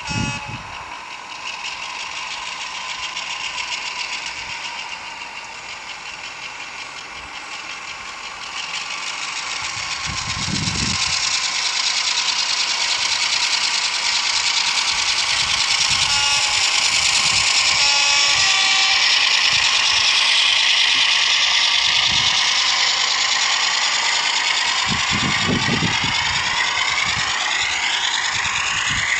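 Sound decoder in a model diesel locomotive playing a diesel engine sound through its small speaker. The engine note builds up about a third of the way in and stays loud, and its pitch shifts and eases near the end, with a few low thumps along the way.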